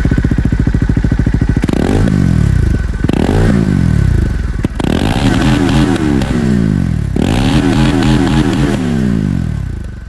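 Bajaj Dominar 400's single-cylinder engine idling, then revved four times with quick throttle blips. Each time the revs shoot up and fall slowly back toward idle, to show off its exhaust note.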